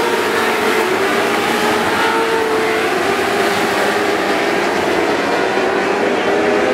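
Several junior sprint car engines running together on a dirt oval, a steady drone whose pitches rise and fall as the cars circle the track.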